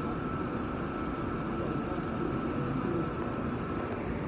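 Steady hum and rumble of a stopped R46 subway car held at a signal, with a thin steady whine that fades out near the end.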